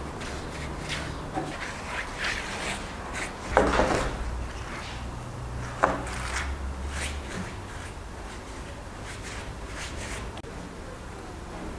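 Wide paintbrush dabbed and dragged over a rough concrete channel, laying on a thick black coating: a series of short bristle scrubs. A duller knock comes about three and a half seconds in and a sharp click near six seconds, over a low steady hum.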